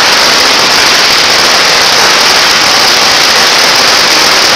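A long string of firecrackers going off in a dense, continuous crackle, very loud and without a break.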